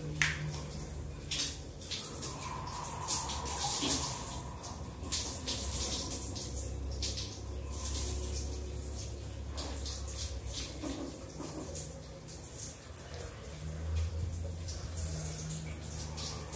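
Shower water running and splashing over hair and shoulders as wet hair is rinsed by hand, with uneven splashes throughout.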